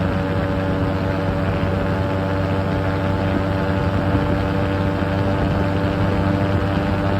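An engine running steadily, a constant hum with several steady tones over it.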